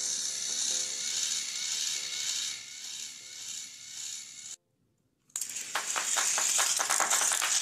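Battery-powered plastic toy train motors whirring and grinding through their gearboxes as two locomotives push head to head, fading over the first few seconds. After a brief cut a little past halfway, a fast, even rattle of clicks follows.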